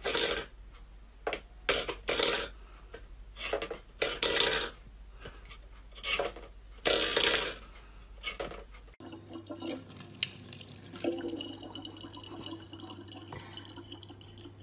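A thin stream of tap water running from a faucet into a plastic water bottle, a steady trickle. Before it comes a run of about seven short, separate scraping noises.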